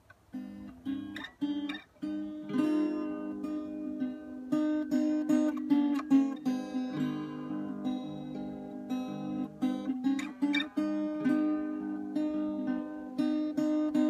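Acoustic guitar playing a song's opening: chords picked and strummed in a steady rhythm, beginning just after a moment of near silence.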